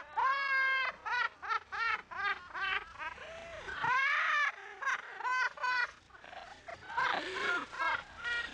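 Young people laughing hard in quick, high-pitched bursts, with a longer squeal about four seconds in.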